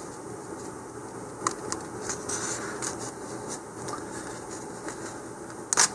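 Small plastic parts of a model rocket kit handled and pressed together: a few light clicks and scrapes as a shock cord anchor clip is worked into the body tube, with a louder cluster of sharp clicks near the end.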